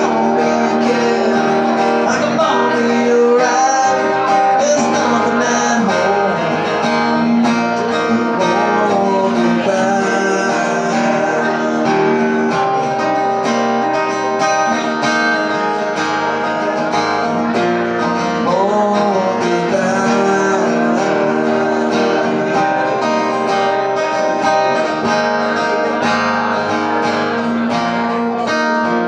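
Acoustic guitar strummed and picked, playing steadily.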